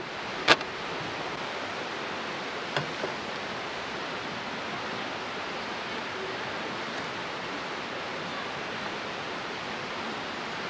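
Steady rushing hiss throughout, with a sharp click about half a second in and two softer ticks near three seconds from hands handling fly-tying tools and materials at a vise.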